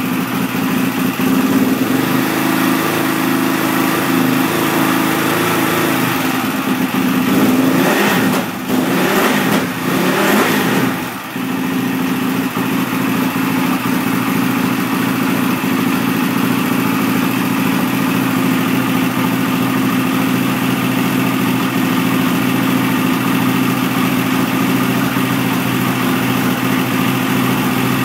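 KTM 450 SX four-stroke single-cylinder motocross engine running just after its first start following a full service: a fast idle at first, a few quick throttle blips about a third of the way in, then a steady idle.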